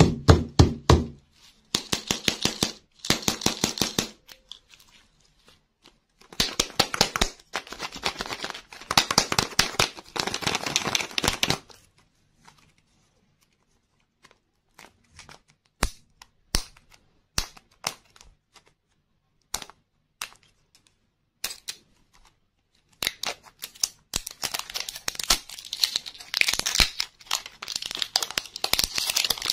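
Clear plastic shrink-wrap and a candy wrapper crinkling and tearing as they are picked at and peeled off a plastic lollipop container. The sound comes in bursts of rapid crackling, with scattered single clicks in the middle stretch and a long crackling run near the end.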